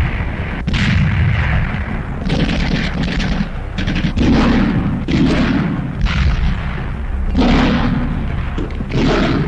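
Combat sound on an old wartime film soundtrack: a rapid series of gunshots and shell bursts, a new one every half second to a second, over a continuous low rumble.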